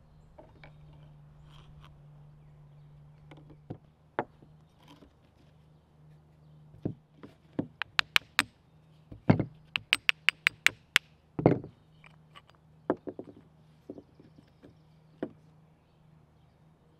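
Steel hammer striking the metal head of an old leather-faced split-head mallet to knock its worn faces loose: a string of sharp knocks, some in quick runs of light taps, with the heaviest blows about halfway through.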